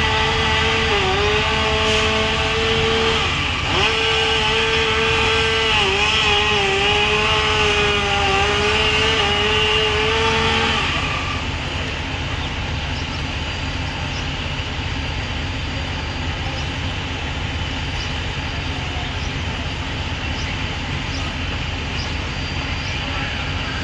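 A running engine drones steadily with a high whine, wavering slightly in pitch; about eleven seconds in the whine stops and a lower, steady rumble carries on.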